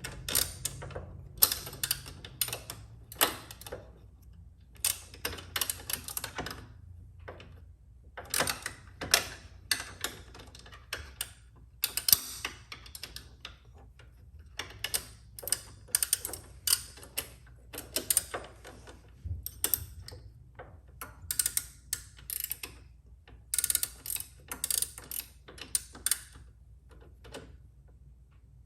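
Small hand ratchet clicking in repeated short bursts of rapid clicks with brief pauses between them, as floorboard bolts are worked loose.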